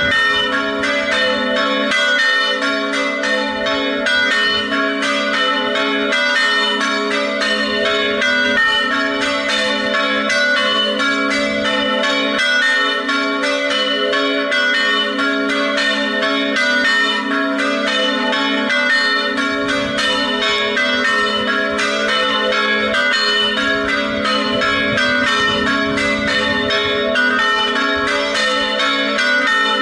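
A peal of three church bells, tuned A, B and C-sharp, ringing the festive noon peal. It is a continuous, rapid run of strokes with the bells sounding over one another, and it does not pause.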